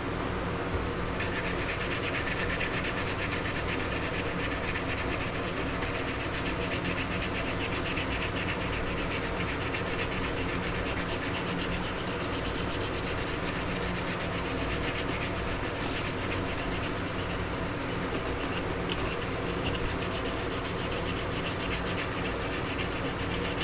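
Bone knife handle being sanded with coarse grit abrasive to remove scratches and round off sharp edges, a steady, even scratching rub with no pauses.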